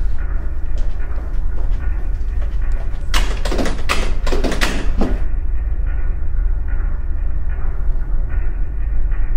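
A metal exit door shaken hard by its push bar: a quick run of about five loud rattling jolts about three seconds in, over a steady low rumble.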